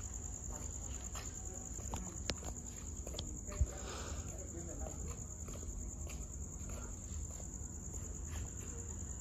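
Steady high-pitched chorus of crickets with a low steady hum beneath it. A faint click a little over two seconds in and a single sharp knock about three and a half seconds in.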